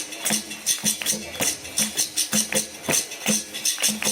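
Capoeira music: pandeiro jingles and hand strokes in a quick, steady rhythm over short low drum-like notes repeating about twice a second.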